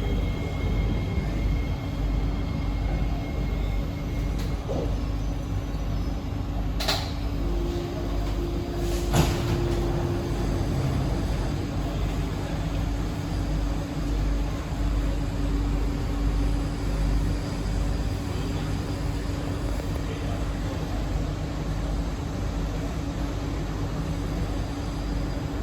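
Inside a C151B metro train car: a steady low hum of the train and its equipment. A thin high tone dies away in the first few seconds, and two sharp knocks come about seven and nine seconds in.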